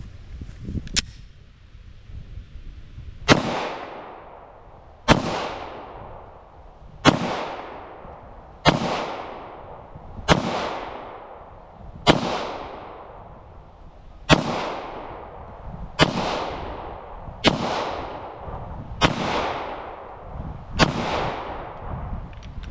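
Glock 22 Gen 4 pistol in .40 S&W fired in slow, deliberate single shots: eleven shots about one every one and a half to two seconds, each followed by a fading echo.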